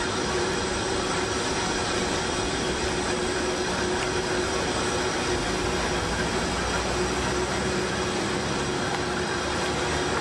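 Steady jet turbine noise from a large transport aircraft: an even rushing sound with one constant mid-pitched whine over it, holding at the same level throughout.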